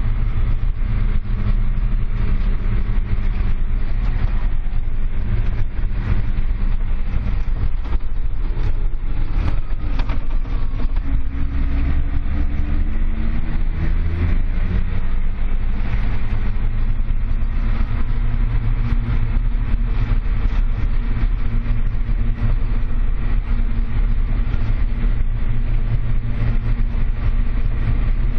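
Large farm tractor's diesel engine running steadily under load as it drives across a field, heard from inside the cab as a loud low drone. About halfway through the engine note rises briefly before settling back.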